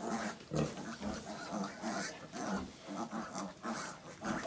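Pig grunting in a quick, steady series, about three short grunts a second.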